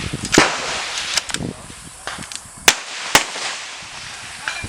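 Several sharp, suppressed centre-fire rifle shots. The two loudest come about half a second apart a little past halfway, with fainter shots before and after them.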